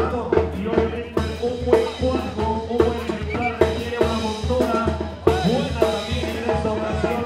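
Mexican banda music: a brass band with drums playing a tune over a steady beat.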